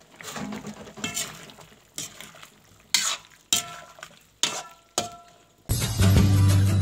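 A metal spatula stirring potatoes and cauliflower in a metal pan, clinking against the pan about once a second with a short ring after each clink. Music starts near the end.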